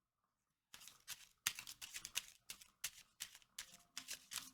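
A deck of cards being shuffled by hand: a run of soft, irregular card slaps and rustles starting about a second in.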